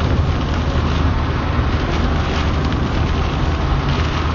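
Car driving at highway speed through a heavy downpour, heard from inside the cabin: a steady low road rumble with rain hitting the roof and windshield.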